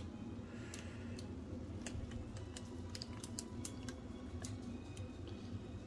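Baked parchment paper crackling in scattered light clicks as it is pulled open from around the fish, over a steady low hum.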